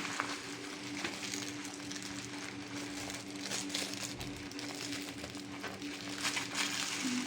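Packaging paper crinkling and rustling as the layers of wrapping around a katana are cut and pulled open, with scattered small crackles. A steady low hum runs underneath.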